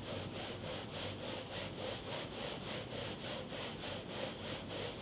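Disposable shoe covers, one plastic (CPE) and one polypropylene, being scuffed back and forth on carpet tile in a quick, even rhythm of rubbing strokes: an accelerated wear test of the covers.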